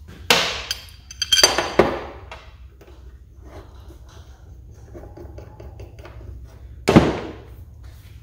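Rusty steel tractor brackets clanking onto a sheet-metal workbench top: a ringing clatter of several knocks in the first two seconds, then one sharp clank at about seven seconds as a long bracket is set down.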